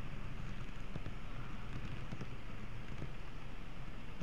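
N-gauge model train running along the track, heard from a camera riding on it: a steady low rumble from the motor and wheels, with faint clicks.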